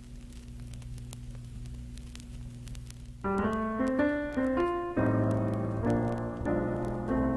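A steady low hum with faint crackling, then solo piano background music starting about three seconds in, single notes over held chords.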